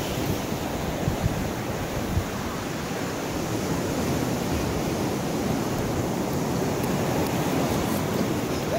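Steady rush of ocean surf washing onto the beach, with wind buffeting the microphone, most in the first couple of seconds.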